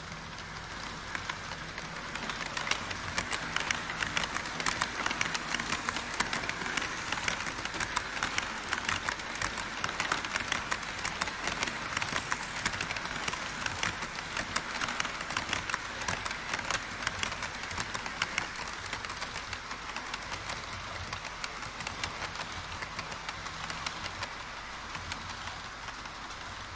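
HO scale model trains running on KATO Unitrack: a dense, fast clicking and rattle of model wheels on the rails. It grows louder as an E5 Shinkansen model passes close by, then eases off toward the end.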